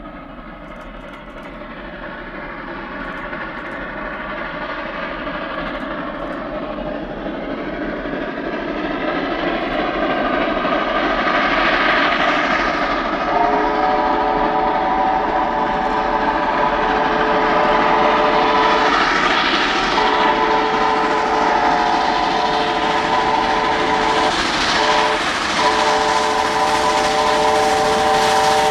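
Chinese QJ-class 2-10-2 steam locomotive working upgrade toward the listener, the sound of its exhaust and train growing steadily louder. About halfway through, its chime whistle starts sounding in long blasts with a short one near the end, a long, long, short, long pattern typical of a grade-crossing signal.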